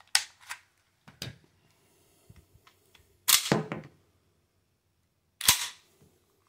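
Metallic clicks and clacks of a prototype .357 Magnum pistol's action being worked by hand. A few quick clicks come at the start and about a second in, a longer clatter comes a little past three seconds as the slide is cycled, and one sharp snap comes about five and a half seconds in.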